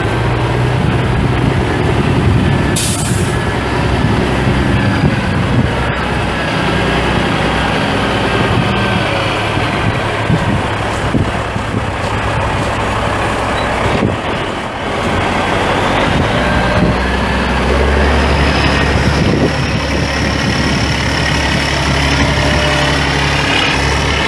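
Caterpillar 3406B 14.6-litre inline-six turbo diesel of a 1991 Kenworth T800 truck running, with a short hiss of air about three seconds in. Near the end the engine note gets heavier and a whine rises in pitch.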